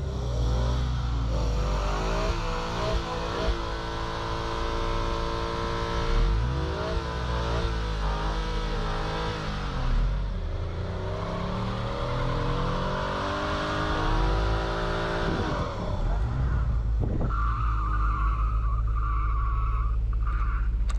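A car stuck in snow revving with its drive wheels spinning. The engine note climbs and holds, sinks around the middle, climbs again, then falls away about three-quarters of the way through. The tyres are spinning for lack of grip.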